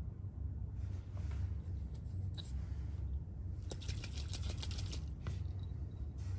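A glass test tube of water and alcohol is lifted from a wire rack with a few light clinks. Then it is shaken hard for about a second, a quick rattling slosh of liquid, over a steady low hum.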